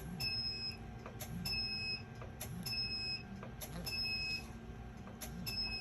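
RF microneedling device beeping as it fires on the scalp: a short high beep, each with a click, repeating about once every second and a bit, five times.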